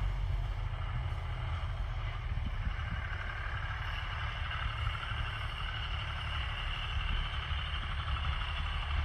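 Tractor engine running steadily at a distance while it works across the field with a fertilizer spreader, a low rumble with a steady hiss over it.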